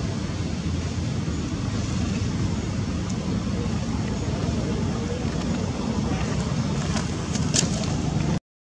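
Steady low outdoor rumble of background noise, with a few faint clicks; it drops out to silence for a moment near the end.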